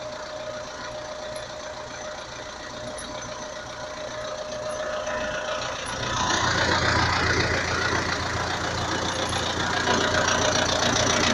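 Belarus 820 tractor's four-cylinder diesel engine running steadily, getting louder and fuller about halfway through.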